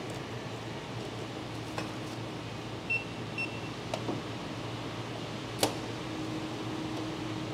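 Two short high beeps half a second apart from a handheld barcode scanner reading items, over a steady hum. A sharp click a couple of seconds later is the loudest sound.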